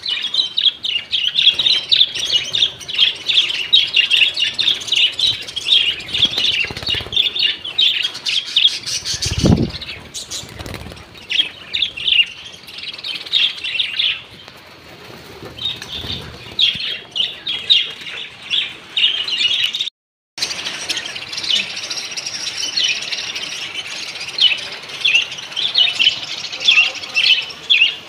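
A colony of budgerigars chattering: a dense run of quick, overlapping chirps and warbles, with wing flapping and a dull thump about nine seconds in. The chatter breaks off for a moment about two-thirds of the way through.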